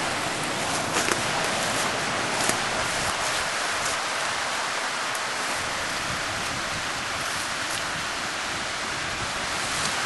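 Steady rushing background noise outdoors, even throughout, with a few faint clicks from handling.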